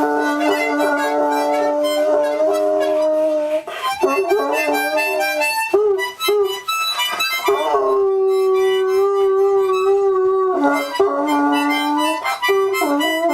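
A harmonica played in long held chords that change in steps, with a dog howling along to it.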